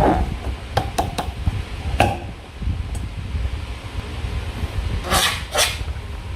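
Slime being squeezed and worked by hand, with a few sharp sticky clicks about a second in and two longer squishy bursts near the end.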